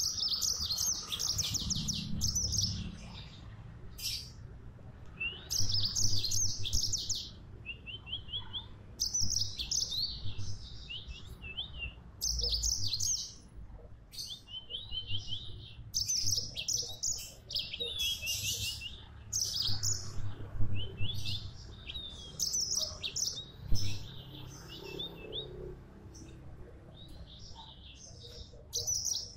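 Yellow-fronted canary (Mozambique canary) singing in lively, repeated bouts of rapid high trills and twittering notes, each phrase lasting a second or two with short pauses between.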